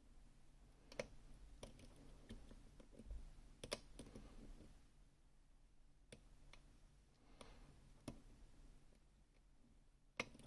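Faint, scattered clicks of lock picks working the sliders of a Gerda Exxo lock, a sharp click every second or two.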